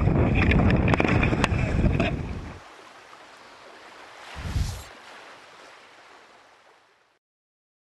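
Wind buffeting the microphone over water splashing, with a few sharp knocks. About two and a half seconds in it drops away, swells once briefly, then fades out.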